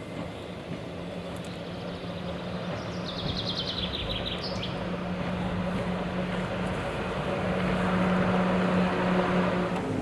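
Roadside tram of the Kirnitzschtalbahn approaching, its steady motor hum and rolling wheels growing louder as it nears, with a car following on the road. A bird sings a short descending phrase about three to four seconds in.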